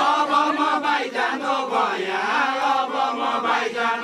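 A group of voices singing a Deuda folk song together in a chant-like unison, the line of dancers singing as they step.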